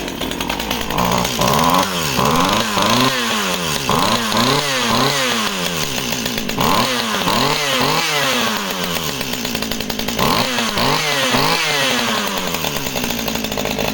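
Stihl MS 181 two-stroke chainsaw running on a squirt of priming fuel, its throttle blipped again and again so the revs rise and fall in quick succession. It runs really well on the prime alone.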